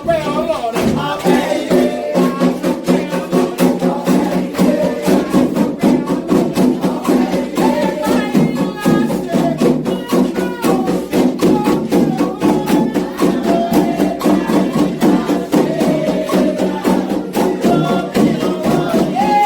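Candomblé ritual music: atabaque hand drums and a struck bell playing a fast, steady rhythm under group singing.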